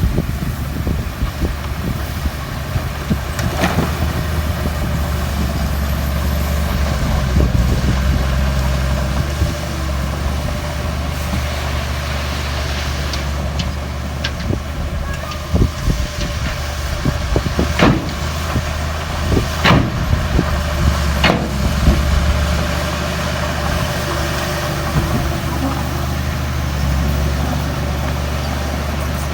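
Heavy diesel earthmoving machinery (a crawler bulldozer loading dump trucks) running steadily with a deep engine hum. Several sharp metallic clanks come through it, mostly in the middle stretch.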